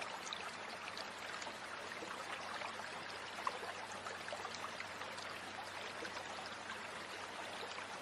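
Shallow forest stream running over a gravel bed: a steady rush of flowing water, with one brief click about three and a half seconds in.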